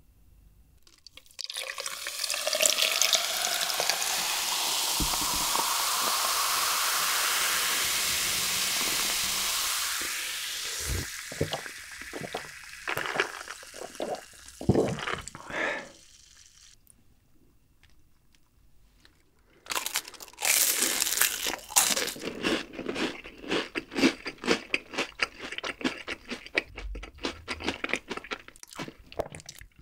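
Coca-Cola poured from a plastic bottle into a glass jar, fizzing, the pitch of the pour rising as the jar fills. Then a few gulps as it is drunk. From about two-thirds through, dense crunching of deep-fried menbosha (shrimp toast) being bitten and chewed.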